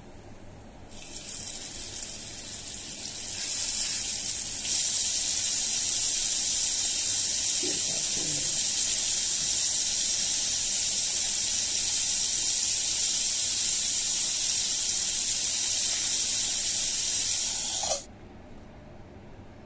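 Anchovies sizzling as they fry in hot oil in a pan, a loud steady hiss. It builds in steps over the first few seconds as more fish go into the oil, then holds and cuts off suddenly near the end.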